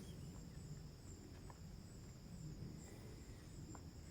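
Faint, steady high-pitched insect chirring, likely crickets, over a low background rumble.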